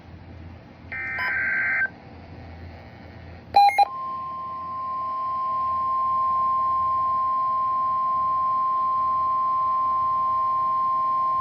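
Emergency Alert System flash flood warning signal: a short burst of warbling digital header tones about a second in, a few brief beeps about three and a half seconds in, then from about four seconds in a long, steady, single-pitched attention tone of the kind the National Weather Service uses for warnings.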